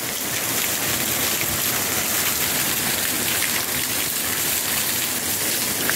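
A thin waterfall falling down a rock face and splashing onto the rocks right below, a steady, even splashing hiss.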